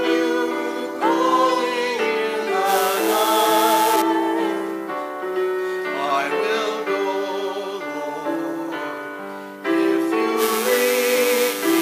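A small church choir singing a hymn with held notes over instrumental accompaniment, with a hiss sounding twice, about three seconds in and again near the end.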